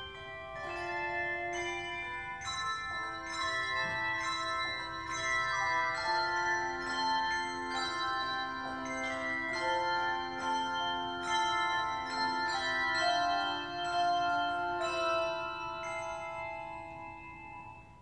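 Handbell choir ringing a tune, many tuned bells struck and left to ring over one another. The ringing fades away near the end.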